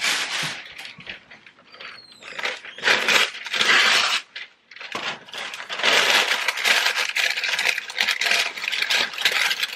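Parchment paper rustling and crinkling as a sheet is pulled from its box and crumpled and pressed into a loaf pan, with a short pause just before halfway through.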